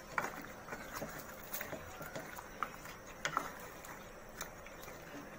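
A handful of light, scattered taps and clicks on a metal cooking pot, some with a short metallic ring, over a faint steady background, as spices and ingredients go into a pot of simmering chicken roast.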